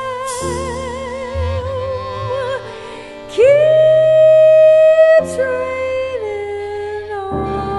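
Closing phrase of a jazz song: a female vocalist holds long notes with wide vibrato, scoops up to a loud held high note about three seconds in, then steps down in pitch, with the band accompanying.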